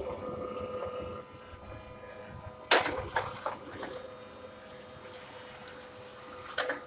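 HP LaserJet M1005 multifunction laser printer running a copy job: a steady motor hum, with sharp mechanical clacks a little under three seconds in and again near the end.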